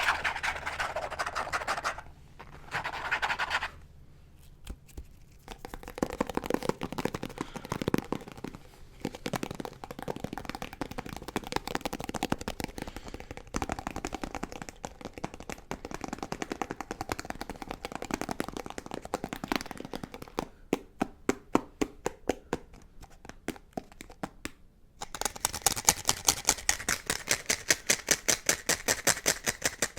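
Fingernails scratching and tapping on a plastic peanut butter jar lid close to the microphone, in dense runs of clicks and scrapes with short pauses. Near the end it turns into a fast, even run of sharp taps.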